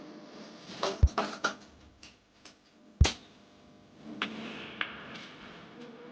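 A few scattered knocks and clicks, with two heavier thumps about one and three seconds in, over faint room noise.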